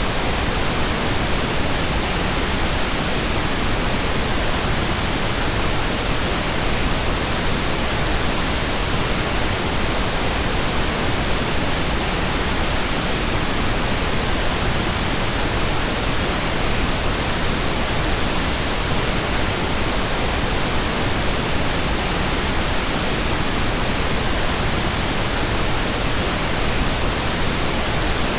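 Steady, unbroken pink noise: an even hiss spread across all frequencies, softer in the highs than white noise.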